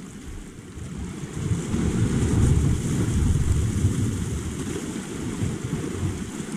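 Wind rumbling on the microphone, mixed with small waves washing over shoreline rocks. The rumble swells toward the middle and eases off near the end.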